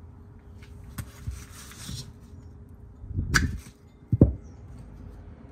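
Handling noise of a Tesla portable charging cable and its blue 32-amp commando adapter being fitted: a light click, some rustling, a knock about three seconds in, then a sharp click about four seconds in, the loudest sound, as the adapter goes on.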